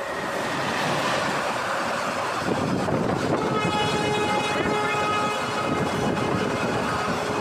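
Electric-hauled passenger train running through a station at speed, its wheel and coach noise building over the first second. About three seconds in the locomotive's horn sounds a steady blast of several tones together, held to the end.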